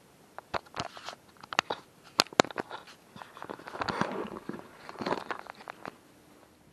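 Footsteps crunching through dry leaf litter on the forest floor, with sharp irregular crackles and rustling of the camera being handled; the crunching is densest in the middle.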